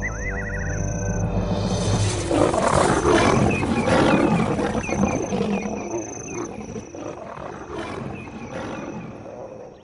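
Lions roaring in a fight, loud and rough from about a second and a half in, over dramatic music; the fight fades out near the end. It is an attack by nomadic male lions on the pride.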